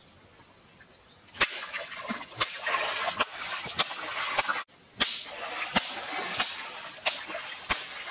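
Hands splashing and slapping the water of a shallow, rocky stream: a run of sharp slaps over a wash of splashing that starts about a second in, breaks off abruptly just after halfway, then carries on.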